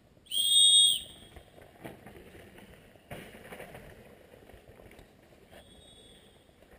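A loud blast on a whistle lasting under a second, then a brief scuffing noise, and near the end a fainter, more distant whistle: course marshals' warning whistles signalling that a rider is coming down the downhill track.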